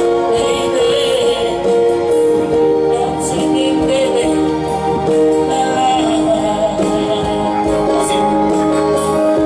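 A man singing a song through a microphone and PA, accompanied by an electronic keyboard playing sustained chords.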